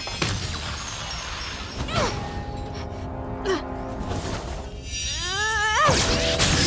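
Film soundtrack music with sudden hits at the start, about two seconds in and about three and a half seconds in, and a wavering, voice-like cry about five seconds in.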